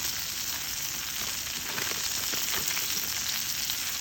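French fries frying in butter in a pan, with a steady sizzle and scattered small crackles.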